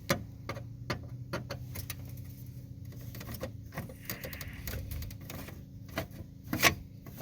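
Irregular small clicks and clinks of hand work on a truck's interior trim and parts, with one sharper knock about six and a half seconds in, over a steady low hum.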